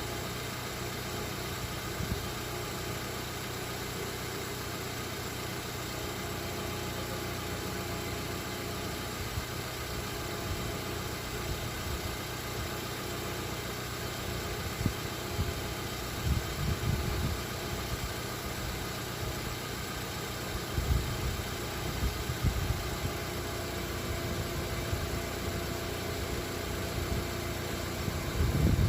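A car engine running steadily, with a few brief low thumps in the second half.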